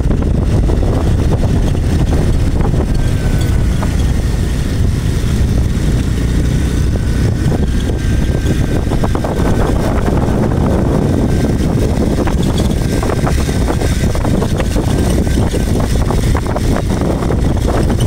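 Motorcycle riding on a rough dirt track: heavy, steady wind rumble on the microphone over the engine running underneath.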